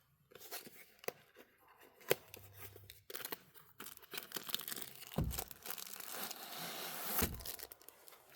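Packaging of a diamond painting kit being torn open and handled: crinkling with scattered sharp clicks, getting busier and louder after about three seconds, with two dull bumps near the end.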